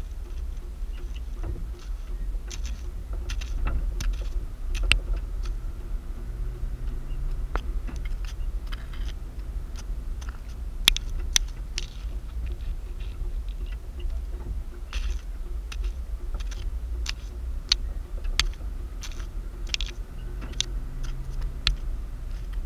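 Car cabin noise while driving slowly: a steady low road-and-engine rumble with irregular sharp clicks and rattles from the interior, the loudest about halfway through.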